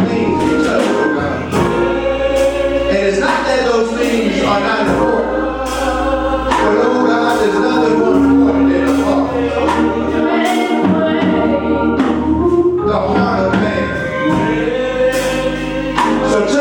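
Gospel choir singing with instrumental accompaniment, sustained voices over a steady bass line.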